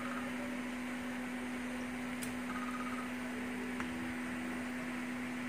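Steady electrical hum with an even, fan-like hiss, as from a small motor or fan running, with two faint light ticks a little past the middle.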